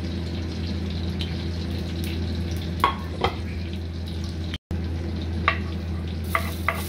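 Steady low hum with a few light clicks of utensils on a stainless steel pan. Near the end, minced garlic slid into hot cooking oil starts to sizzle, with quick taps as it is scraped off the board.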